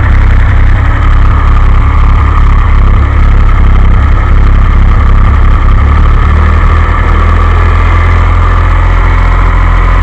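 DeLorean's PRV V6 engine on a converted Motorcraft 2100 two-barrel carburetor idling. The idle is rough, with the idle outlet screws turned in too far and the throttle plates cracked open on the curb idle screw, while the screws are being reset. The low running note changes about six and a half seconds in.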